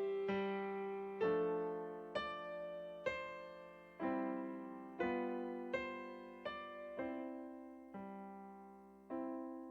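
Slow, gentle piano playing: chords struck about once a second, each left to ring and fade, ending with a final chord held and dying away near the end.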